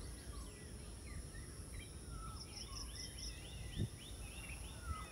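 Several birds chirping and whistling with many short calls over a steady high insect buzz, with an insect pulsing rapidly for about a second halfway through. A dull knock comes near the end, over a low rumble.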